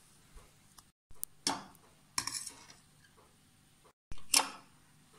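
A metal fork clinking and tapping against plates, about three sharp strikes with the loudest near the end, while chicken rolls are dipped in beaten egg and coated in breadcrumbs.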